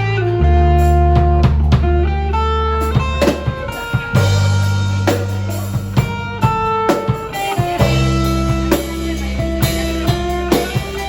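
Band music: guitar playing over a deep bass line, with a drum kit keeping a steady beat.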